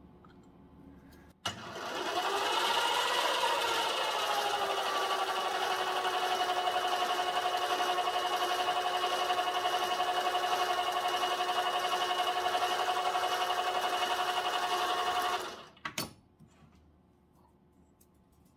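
Small metal lathe with a twist drill boring into an aluminium bar. After a click, the spindle motor whines up to speed over a couple of seconds, runs steadily, then winds down about three seconds before the end, followed by another click.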